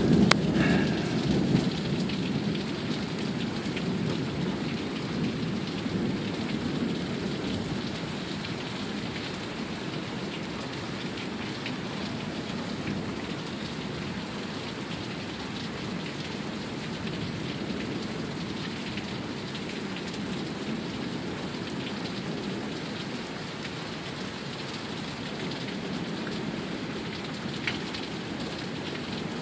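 Heavy rain pouring down steadily in a thunderstorm downpour, with a roll of thunder rumbling low and fading away over the first several seconds.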